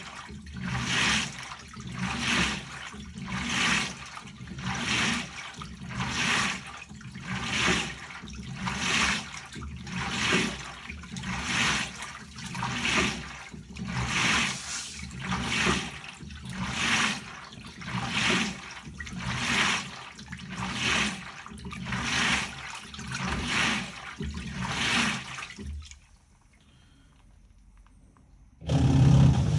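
LG Turbodrum WTR807 direct-drive top-loading washer agitating a load in water, a swishing surge about once a second. The agitation stops about 26 s in, and a loud low hum starts near the end.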